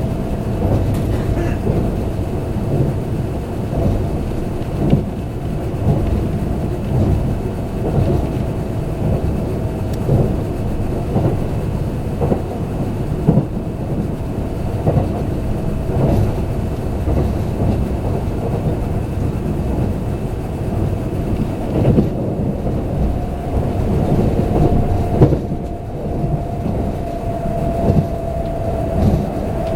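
Kintetsu limited express train running at speed, heard from inside the carriage: a steady rumble of wheels on rail with a thin whine held throughout and occasional sharp knocks from the track.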